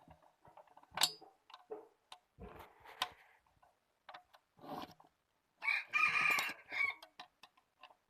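A rooster crowing once, a held call of about a second and a half starting just past halfway through. Scattered clicks and knocks come before it.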